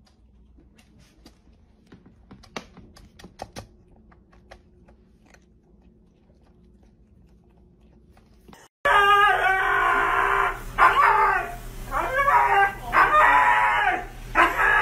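A kitten crunching dry kibble from a bowl, heard as faint scattered clicks. About nine seconds in, a wet husky being bathed starts loud, wavering howls and yowls that rise and fall in pitch, call after call.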